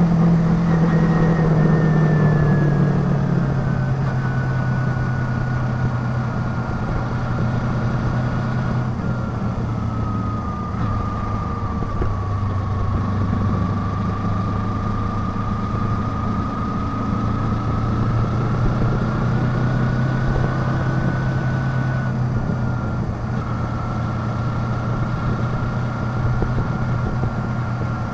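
Kawasaki Ninja 250's parallel-twin engine running steadily, its pitch easing down over the first few seconds and then holding fairly level, with a thin high whine drifting slowly in pitch.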